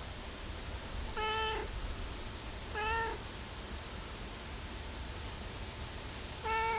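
Tabby cat meowing: three short meows, the first about a second in, the second about three seconds in and the last near the end, over a steady low rumble.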